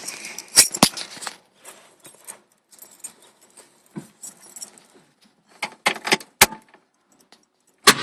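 A key ring jangling, with sharp metallic clicks as a key is handled at the ignition. Just before the end, the 1965 Mustang's engine begins to crank.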